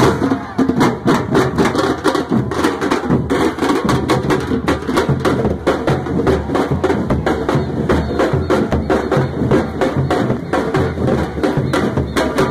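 A street drum band of large surdo-style bass drums and smaller snare-type drums playing a fast, steady marching rhythm.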